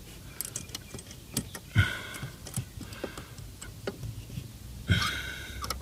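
Small screw clamp with a T-handle being turned tight onto an aluminium pedal pad: a run of light, irregular clicks and ticks, with two louder brief rasps about two seconds in and again near five seconds.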